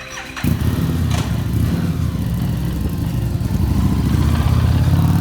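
Harley-Davidson Street 750's V-twin engine running, coming in suddenly about half a second in with a loud, steady, low rumble as the bike is taken out for a test ride on the repaired front tyre.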